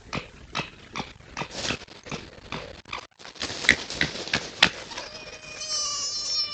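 Red foxes calling: a run of short, sharp, harsh cries about two or three a second, then a long wavering whining cry near the end. These are the crying and howling sounds foxes make when squabbling or establishing territory in autumn.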